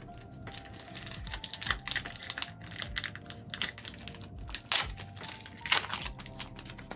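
Foil trading-card booster packs crinkling and tearing as they are opened, with cards being handled; a crisp, crackling run of small clicks, with two louder rips about five and six seconds in.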